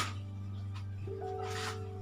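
Background music: held notes over a steady low drone, with a new note coming in about halfway through.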